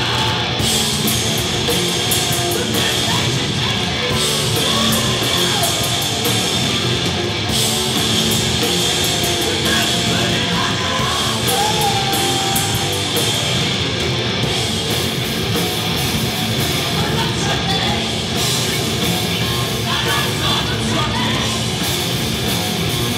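A live heavy rock band playing loud: bass guitar played through a distortion pedal, drums with cymbal hits, and a woman singing into a microphone.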